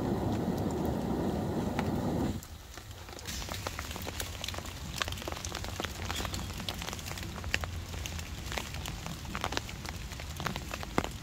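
A dull rushing noise for the first two seconds or so stops abruptly. Then rain patters steadily on a tarp and the leaf litter, with many scattered sharp drop ticks.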